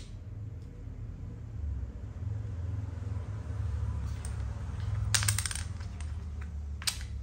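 Thai chess (makruk) pieces clicking against the board and each other as they are moved and captured: a short rattle of clicks about five seconds in and a single click near the end, over a low steady hum.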